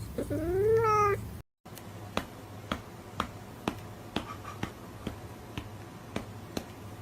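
A cat's meow that rises then falls in pitch over about the first second. After a short break comes a run of light clicks, about two a second.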